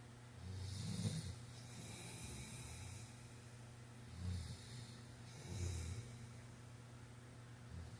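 A man snoring in his sleep, with a few separate snores spaced a few seconds apart; the loudest comes about a second in.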